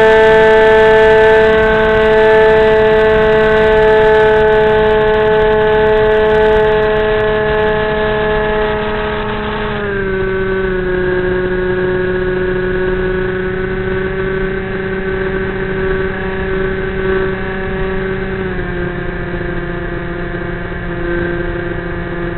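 Brushless electric motor and 7x6 propeller of a flying wing whining steadily in flight, heard through the onboard camera. The pitch drops a step about ten seconds in and again near the end as the motor slows.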